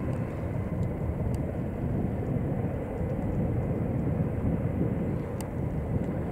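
Steady distant rumble of jet aircraft engines at an airfield, with a faint thin whine over it and an occasional small click.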